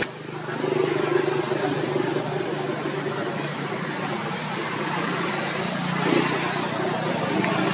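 Steady outdoor background noise with a low, even hum under it, like distant road traffic or an idling engine; it dips for a moment at the very start, then holds level.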